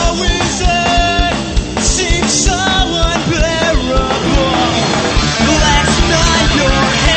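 Punk rock band playing, with a steady drum beat under a wavering melodic line.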